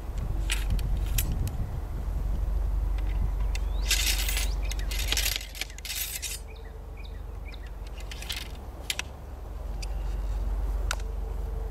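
Loading a Pattern 1853 Enfield rifle musket: metal clicks and clinks, then a few short scraping rasps as the steel ramrod is drawn and worked down the barrel. A steady low rumble runs underneath.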